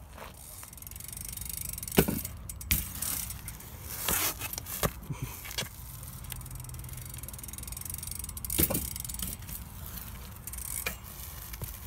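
BMX bike ridden on rough concrete: tyres rolling and scuffing, the bike rattling, with several sharp knocks from the bike, the loudest about two seconds in and again near nine seconds.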